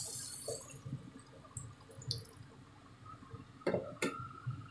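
Hot water being poured into a frying pan of soya chunk and potato curry, the pour tailing off within the first second. After that it is quiet, with a few light clicks and two sharp knocks near the end.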